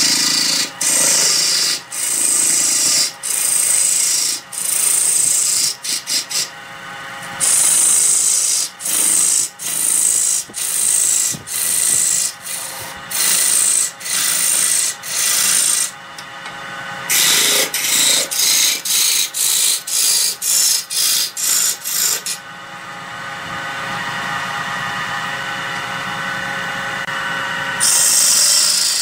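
Wood lathe running with a steady hum while the spinning wood is worked in repeated short scraping passes, each a fraction of a second to about a second long with brief breaks between them. For several seconds late on the scraping stops and only the lathe is heard.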